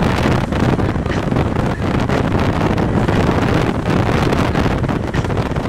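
Loud, steady wind rush from air buffeting through an open car window at road speed, with the car's road noise beneath.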